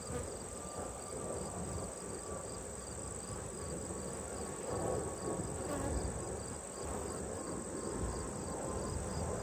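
Honey bees buzzing in a steady hum around an opened hive, the colony stirred up. Crickets chirp faintly in a regular rhythm behind it.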